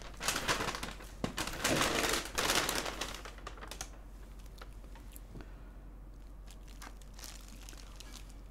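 A thin plastic bag crinkling and rustling as it is handled, loudest in the first three seconds, then only faint scattered rustles and clicks.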